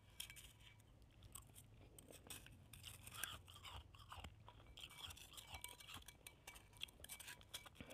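Faint scraping and crunching of a spoon working through shaved ice in a bowl, a string of small scattered scratches and clicks.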